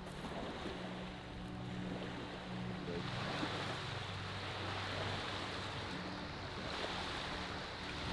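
Choppy lake water splashing and wind blowing, a steady wash with a faint low hum underneath.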